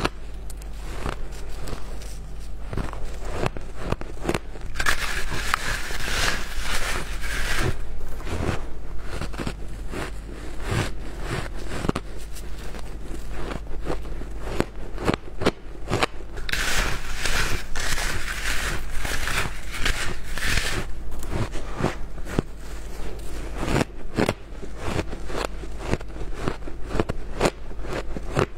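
Close-up crunching and chewing of chunks of frozen coloured shaved ice, a dense run of crisp crackling crunches, with two longer stretches of heavier grinding crunches about a sixth of the way in and again past the halfway point.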